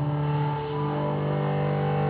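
Background music: sustained low notes held steadily under a few higher held tones.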